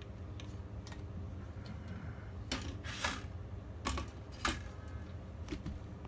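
Light clicks and taps of a sheet-metal computer drive cage and its cable connectors being handled and set aside, a scattering of separate strokes with the strongest a little past the middle.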